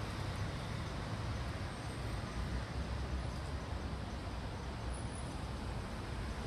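Steady outdoor city background noise: a low traffic rumble under an even hiss, with no distinct events.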